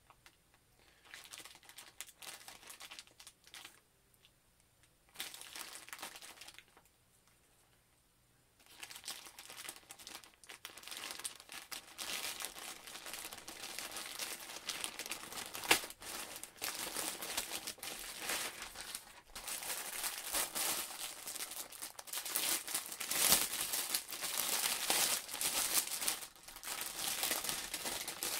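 Plastic poly mailer bag crinkling and rustling as it is opened by hand and the plastic-wrapped item inside is pulled out. It comes in short stretches with pauses at first, then runs continuously and gets louder, with one sharp click about halfway through.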